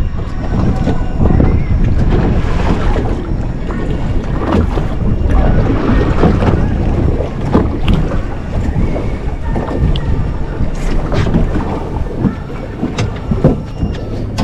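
Wind buffeting the microphone on an open boat, with water sloshing against the hull and occasional short knocks.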